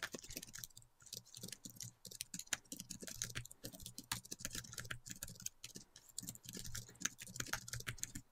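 Computer keyboard typing: a quick, irregular run of faint key clicks.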